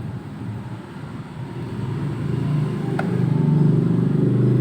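Low rumble of a motor vehicle, growing louder over the last couple of seconds, with one short click about three seconds in.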